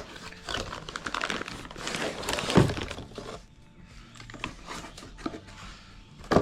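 A box of vacuum clamp pods being opened and handled. The packaging crackles and rustles for about three seconds, with a sharp knock at the start, a thump in the middle, a few light ticks, and another sharp knock near the end.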